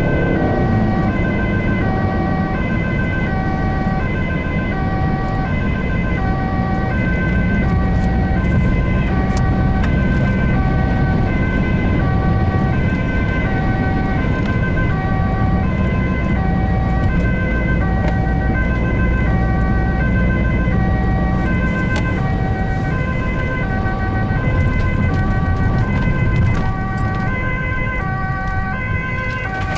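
Ambulance two-tone siren, alternating evenly between a high and a low note, heard from inside the ambulance's cab over the steady rumble of its engine and tyres on an emergency run.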